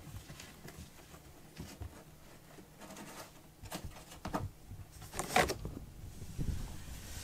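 A kitten's claws scratching and scrabbling on a cardboard scratcher box, with small clicks and one louder scrape about five seconds in as it pushes off the edge to jump down.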